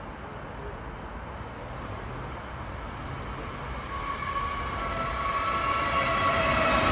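923-series Doctor Yellow Shinkansen inspection train approaching to pass through the station without stopping. Its rush grows steadily louder, and from about four seconds in a whine of several steady tones builds as the nose arrives.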